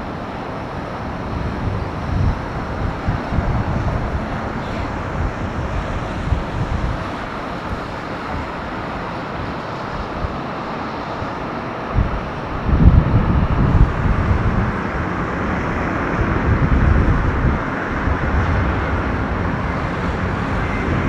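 Jet engines of a Boeing 777-300ER airliner running with a steady rushing noise that grows stronger about halfway through, over irregular low rumbling of wind on the microphone.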